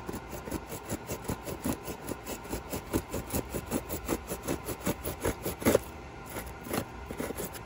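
Hand-held orange-handled blade sawing and scraping through a foam skull in rapid short strokes, about five a second, with one louder stroke near the end.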